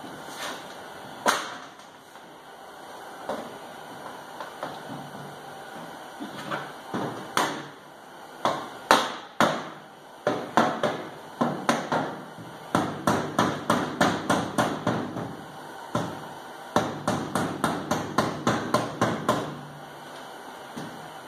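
A soft-faced two-headed mallet lightly tapping a sheet-metal wheel tub, working its lip over the mating edge a little at a time. A few scattered knocks come first, then runs of quick taps of about four a second with short pauses between.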